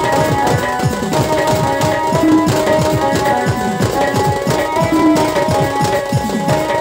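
Fast, dense drumming on hand drums, with many low strokes that fall in pitch, over steady held higher tones.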